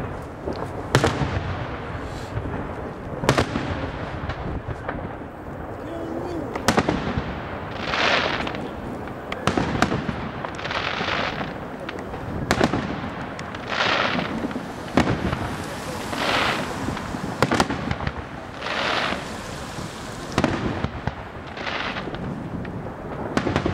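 Daytime aerial firework shells going off: a string of sharp bangs every two to three seconds, with hissing rushes of about a second each in between.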